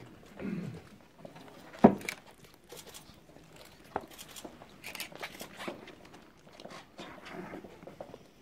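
Paper documents handled and pages turned at a signing table, with small pen and paper clicks, a sharp knock about two seconds in and a lighter one about four seconds in.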